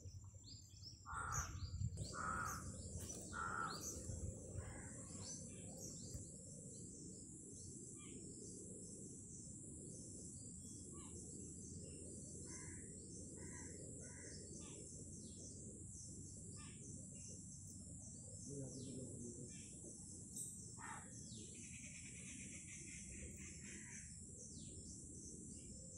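Seeds frying in a little hot oil in a kadai with a soft, steady sizzle. Birds chirp now and then in the background, most in the first few seconds.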